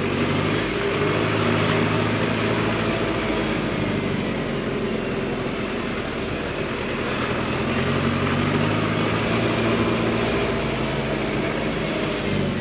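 Off-road 4x4's engine running steadily while driving, its pitch drifting up and down a little.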